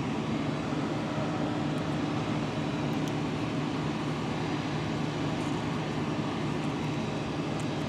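Steady machinery hum with a constant low-pitched drone, the running equipment of an airport apron.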